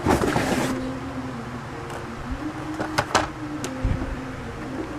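A battery-powered toy cash register giving off a steady low hum that shifts in pitch a few times. A rustle of plastic handling comes in the first second, and a few sharp clicks come around the middle.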